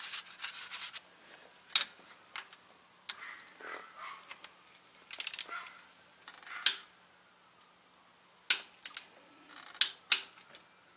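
Ratchet wrench clicking in short runs and single clicks as the DSG transmission's drain plug is tightened to torque, with a rag rubbing at the start.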